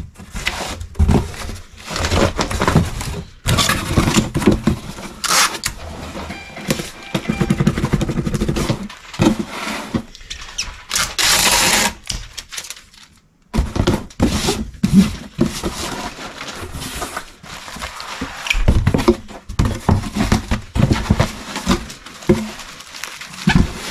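Packing noises: a bubble-wrapped item being handled and settled into a cardboard shipping box, with irregular rustling, knocks and thumps and a brief brisk rustle about halfway through.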